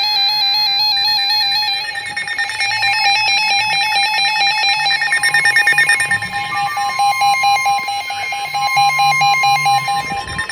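Several NOAA weather radio receivers sounding an alert for a severe thunderstorm warning. Warbling electronic tones and fast pulsing alarm beeps play together, and the steady 1050 Hz NOAA warning tone joins about three seconds in and holds until just before the end.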